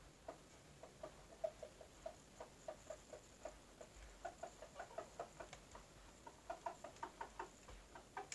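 Chickens clucking softly: a rapid, uneven series of short, faint clucks, a few each second, coming quicker near the end.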